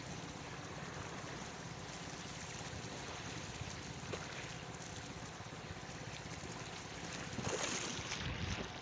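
Steady seaside wind and surf noise, with wind buffeting the microphone.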